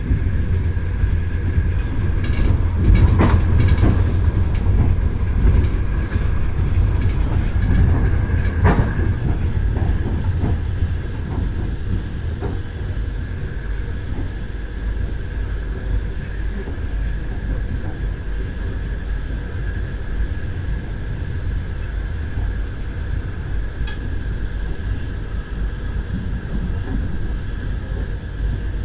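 Moving train: wheels clacking over the rail joints above a steady low rumble, with a faint steady whine. There are heavier clacks about three and nine seconds in and a sharp click near the end, and the rumble eases a little after about ten seconds.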